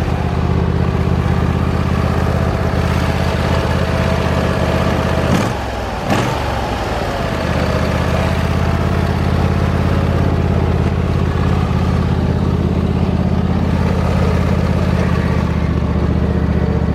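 Briggs & Stratton 24 hp V-twin engine of a Husqvarna lawn tractor running steadily under way. About five seconds in the engine note briefly dips, with two clicks, then settles back to a steady run.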